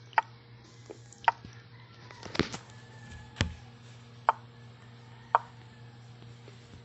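Chess moves clicking: six sharp, short clicks about a second apart, over a low steady hum.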